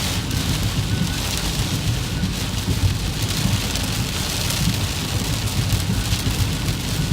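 Heavy rain falling steadily, an even hiss with a constant low rumble underneath.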